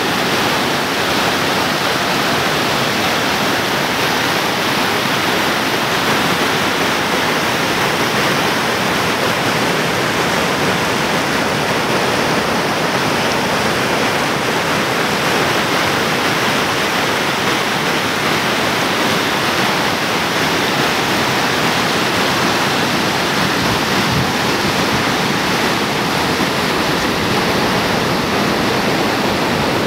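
White-water river rapids rushing over flat bedrock ledges: a loud, steady rush of water.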